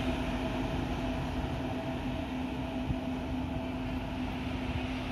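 Three-phase electric locomotive (Indian Railways WAG-9) running along the track: a steady rumble with a constant electrical hum.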